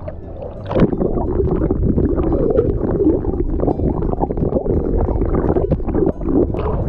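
Seawater bubbling and sloshing around a camera's microphone as it goes under the surface about a second in, heard muffled and gurgling underwater.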